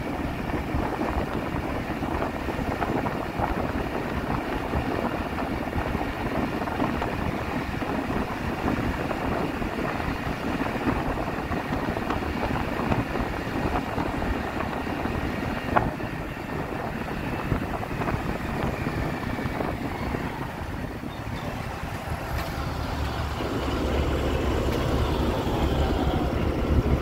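Steady engine and road noise heard from inside a moving vehicle at highway speed. Near the end a deeper, louder hum takes over as the vehicle pulls up in traffic.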